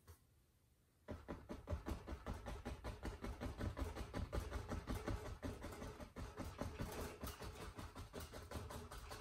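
Fan brush loaded with oil paint tapped rapidly up and down against a stretched canvas, a quick run of taps several times a second, starting about a second in.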